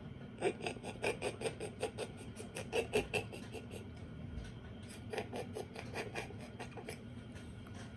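Mouth-suction nasal aspirator drawing mucus from a toddler's nostril: a quick run of short sucking strokes, about five a second, then a fainter second run a few seconds later.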